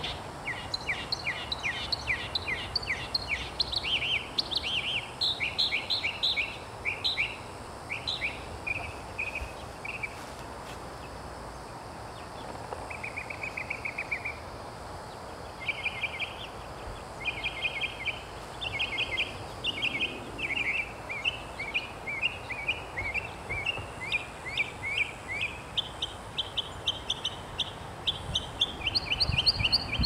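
A perched songbird singing a long, varied song: quick runs of chirping notes grouped into repeated phrases, with a short buzzy trill near the middle and a few brief pauses.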